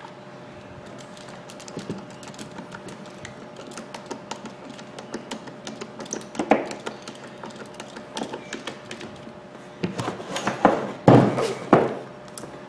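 Screwdriver turning screws into the plastic housing of a Makita hammer drill, small clicks and scrapes, then several louder knocks and clatter as the drill is handled and set down on the wooden bench near the end.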